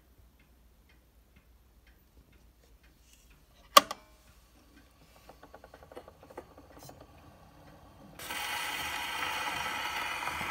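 Victrola VV-S-405 acoustic phonograph being set going with a shellac 78 rpm record: faint ticking, a single sharp click a little under four seconds in, then a run of light clicks. From about eight seconds the needle rides the record's lead-in groove with a steady hiss and crackle of surface noise, just before the music starts.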